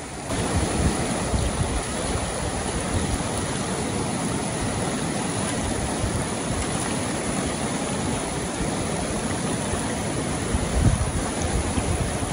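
Steady rush of river water. Low gusts of wind buffet the microphone near the end.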